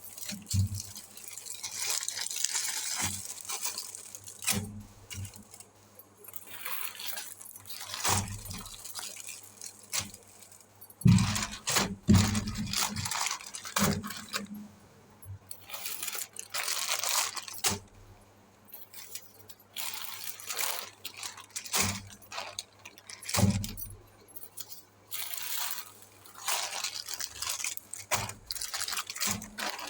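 Hands rustling and rubbing packaging and balloons in an unboxing, with irregular crinkling swells and scattered light knocks and clinks, loudest about eleven to twelve seconds in.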